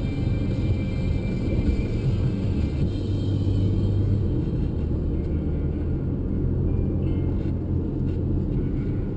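Car driving along a highway: a steady low rumble of engine and road noise.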